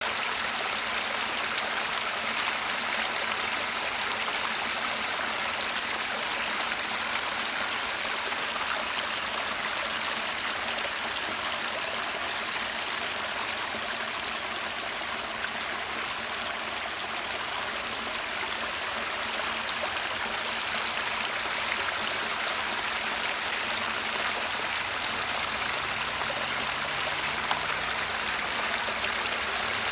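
A small cascade in a shallow stream, water spilling in many thin streams over a rock ledge and splashing onto mossy rocks below. It makes a steady, unbroken rushing splash, mostly high-pitched.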